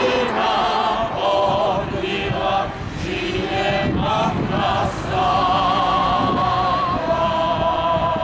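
Mixed choir singing a hymn, with its last phrases drawn out into long held notes; the song ends near the end.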